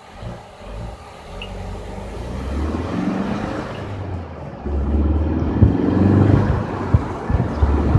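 2016 Ford Focus RS's 2.3-litre turbocharged four-cylinder engine pulling away from a standstill, heard from inside the cabin. The engine note climbs, dips for a gear change about halfway, then climbs again louder, with a few sharp knocks near the end.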